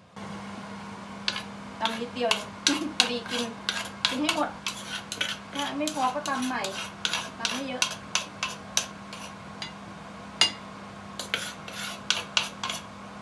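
Spoon scraping and clinking against a clay mortar and a plate as a pounded salad is stirred and scooped out: a quick, irregular run of sharp scrapes and clicks over a steady low hum.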